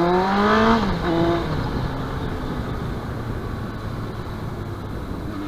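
Yamaha YZF-R1's 1000cc inline-four engine accelerating, its pitch rising for the first second and then dropping, followed by steady running with road and wind noise.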